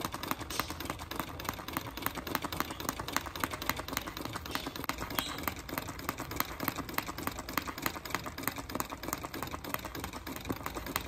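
Treadle sewing machine stitching steadily, its needle punching through water-soluble paper with a rapid, even ticking. Stitching on the paper makes the machine noisier than on fabric.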